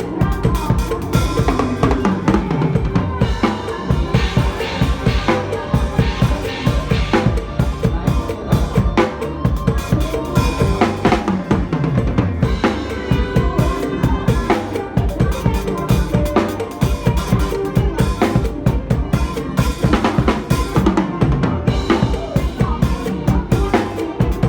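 Drum kit played along to a fast, upbeat Isan mor lam song: bass drum, snare and rimshot strokes in a steady dense rhythm over the song's melody.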